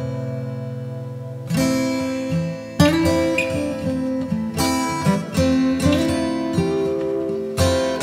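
Background music played on a plucked string instrument, most likely acoustic guitar: chords ring and fade, and a new chord or note is struck every second or two.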